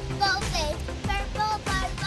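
A young girl's high voice in sing-song over background music with steady low notes.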